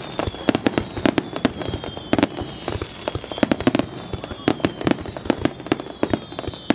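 Fireworks display: a rapid, irregular run of bangs and crackling pops, several a second, over a faint high whistle slowly falling in pitch.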